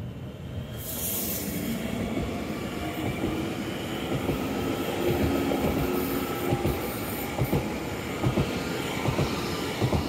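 Mitteldeutsche Regiobahn multiple-unit train rolling past close by, with a steady rumble and a faint whine. In the second half the wheels knock over rail joints several times.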